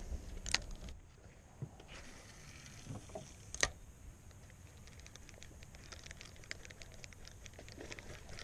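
Spinning reel being cranked in: a fast run of faint, light ticks from about five seconds in, after two sharp clicks earlier on.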